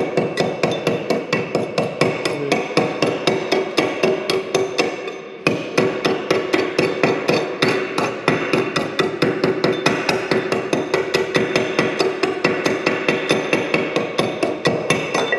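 Stick-welding arc crackling in a fast, even pulse over a steady buzz, breaking off about five seconds in and striking again. The arc is not burning smoothly, which the welder finds strange.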